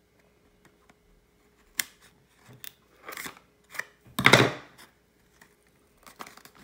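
Speed-cube box being cut and opened: scattered small clicks and rustles of packaging, with one louder rasping sound lasting about half a second, a little past the middle.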